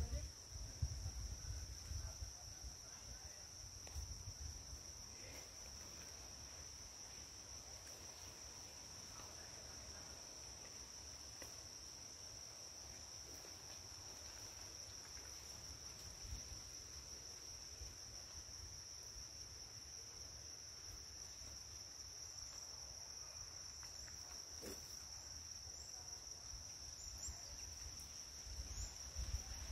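Faint, steady high-pitched drone of forest insects such as crickets, holding one pitch throughout, over a low rumble on the microphone.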